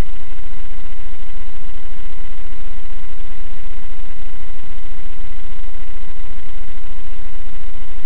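Loud, steady hiss and low hum from a car dashcam's own recording, with a thin steady electrical whine running through it.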